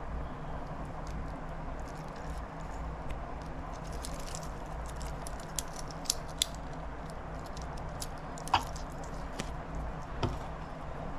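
Scattered light clicks and taps from a stainless steel watch and its metal band being handled, a sharper click about eight and a half seconds in, over a steady background hiss and hum.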